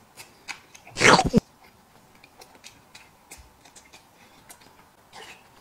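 A man eating peeled boiled eggs with chopsticks. About a second in there is a short, loud, breathy mouth sound, followed by faint scattered clicks and quiet chewing.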